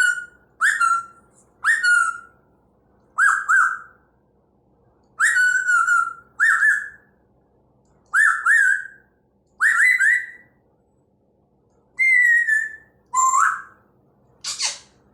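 African grey parrot whistling about a dozen short notes, each sliding slightly downward, in singles and pairs with pauses between them. Near the end comes one harsh, rasping note.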